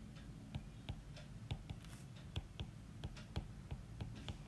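Faint, irregular small clicks and taps, several a second, over a low steady hum.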